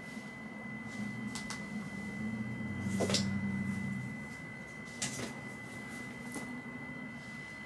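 A steady high-pitched electronic whine over a low room hum, with a few light clicks and knocks; the sharpest knock comes about three seconds in.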